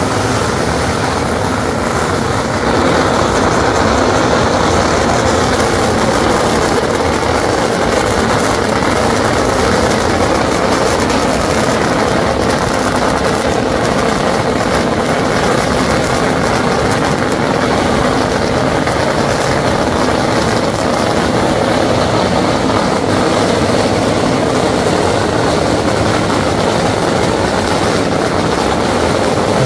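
Strings of red firecrackers laid out in a carpet on the road going off all at once in a dense, unbroken crackle of rapid bangs, loud and steady.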